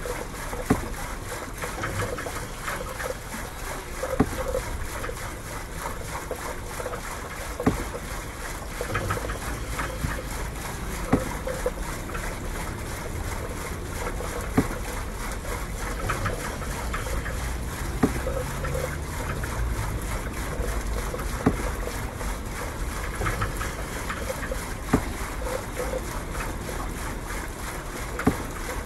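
Outdoor ambience on a floating nativity scene: a steady wash of wind and water noise, with a sharp mechanical click repeating regularly about every three and a half seconds.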